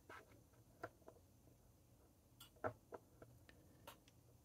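Near silence broken by about five faint, sharp ticks and taps from a glass dip pen being handled over a paper swatch card, the loudest a pair of clicks a little before three seconds in.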